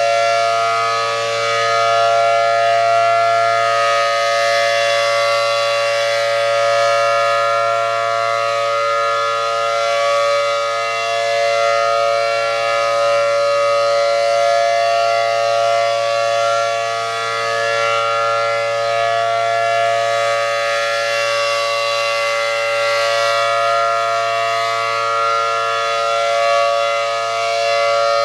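ACA Allertor 125 rotating electromechanical siren with a 10/12-port rotor, sounding its steady alert tone as a two-note chord. The pitch holds steady while the loudness swells and fades slowly as the horn rotates.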